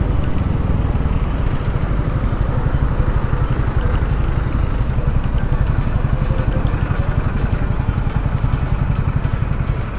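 TVS Apache RTR 200 4V's single-cylinder, oil-cooled engine running steadily as the motorcycle is ridden through traffic.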